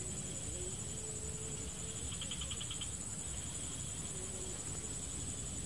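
Insects trilling in swamp vegetation: a steady high-pitched trill throughout, with a short run of rapid chirps about two seconds in.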